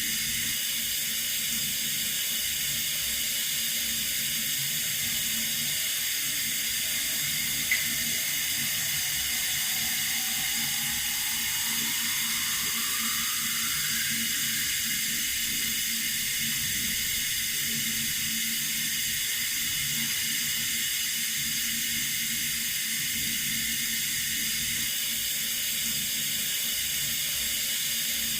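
Water running steadily from a tap, an even, unbroken hiss. A single brief click sounds about eight seconds in.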